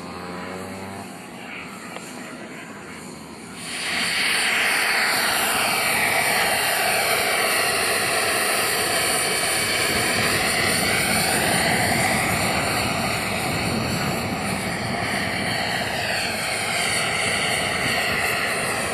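Small gas-turbine engine and rotor of a jet-powered RC helicopter: a quieter running sound at first, then about four seconds in it spools up to a loud, steady whine and rush as the helicopter lifts off and flies, the whine sweeping up and down in pitch as it moves about.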